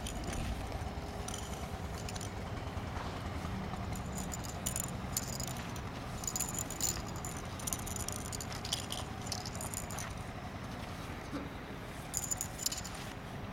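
Spear form being practised: scattered bursts of light rattling and clicking from the spear as it is thrust and swung, with shoes scuffing on the dirt, over a steady low rumble.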